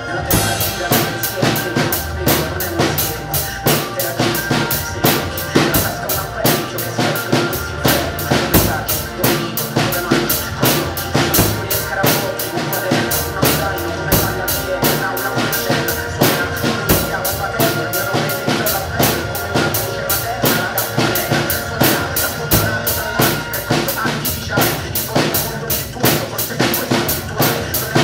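Drum kit (a Tamburo T5) played in a steady groove of kick, snare and cymbals, coming in right at the start, over a recorded backing track of the song with sustained notes underneath.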